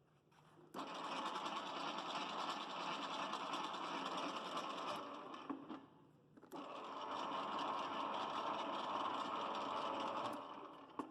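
30-litre bakery mixer running with a dense mechanical whirr. It starts about a second in, stops around the middle, starts again and stops near the end.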